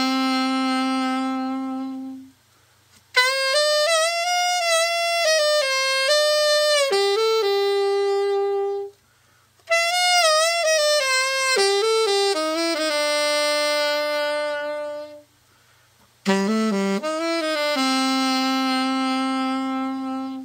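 Julius ST-90 Series 2 alto saxophone played solo: a slow melody in four phrases with vibrato, each ending on a long held note, with short breath pauses between them. It is a play test of the horn after a full overhaul.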